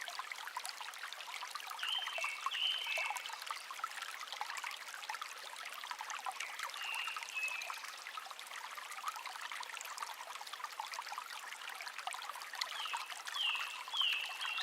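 Mountain stream water running, a steady rushing hiss. Short high falling chirps come about two seconds in, again around seven seconds, and as a quick run of three near the end.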